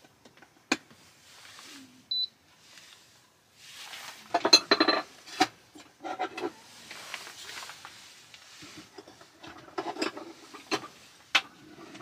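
Small cups and containers being handled and set down on a tabletop: scattered clicks, knocks and clinks, with one short electronic beep about two seconds in.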